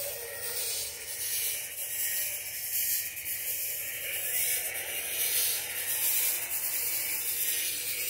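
Fog machine hissing steadily as it sprays fog, a high hiss with small rises and falls in loudness.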